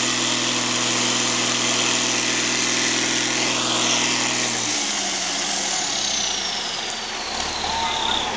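MAN 8x8 trial truck's diesel engine running steadily as it crawls through deep sand; about five seconds in the steady engine note drops away to a deeper rumble, with a faint high whine falling in pitch.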